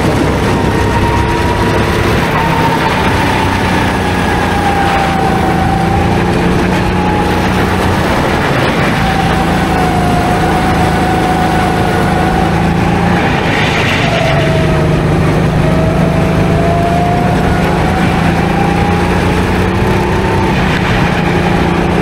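Go-kart motor running continuously, its pitch slowly dipping and rising several times as the throttle changes.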